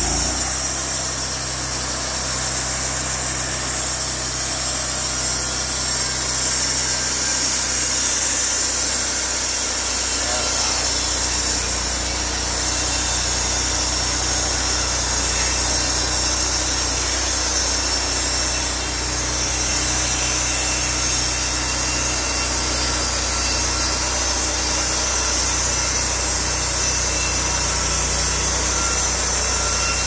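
Wood-Mizer portable band sawmill running, its engine droning steadily under a constant high hiss.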